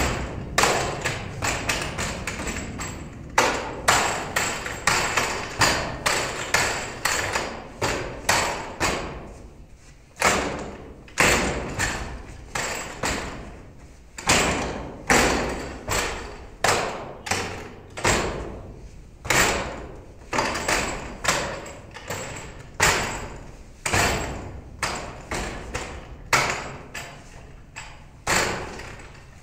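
Wing Tsun wooden dummy (mook yan jong) being struck: an irregular run of sharp wooden knocks, a few a second with short pauses, as forearms and hands hit its arms and trunk and a foot hits its leg. The knocks echo in the bare hall.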